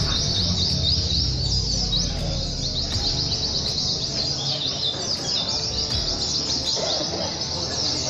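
Chorus of caged white-eyes (pleci) singing together, with many rapid, high, chirping phrases overlapping without a break.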